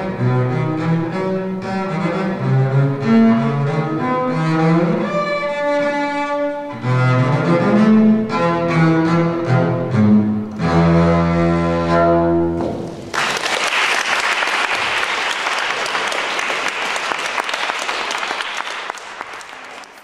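Solo double bass played with the bow: a run of notes ending in a long held low note that stops about thirteen seconds in. Audience applause follows and fades out near the end.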